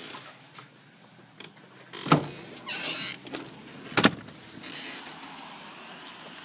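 A door being opened to go outside: two loud knocks about two seconds apart with a scraping slide between them, then a steady hiss.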